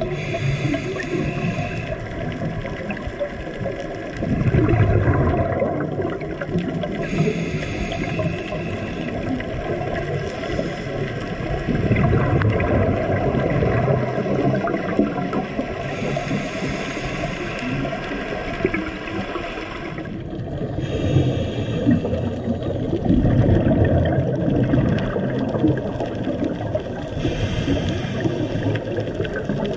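Underwater sound picked up through a camera housing: a continuous rush of water with a scuba diver's exhaled bubbles gurgling past in several louder surges.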